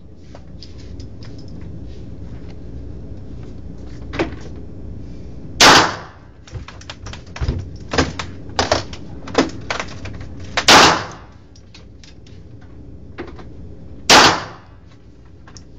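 Sharp knocks and bangs, three loud ones a few seconds apart with a short ring after each, among many smaller clicks, over a steady low rumble.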